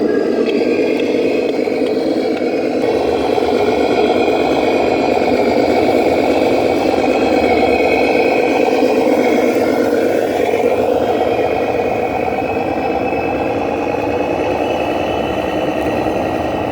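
Radio-controlled model construction vehicle running: a steady engine sound with a higher whine over it, the whine rising briefly a little after halfway.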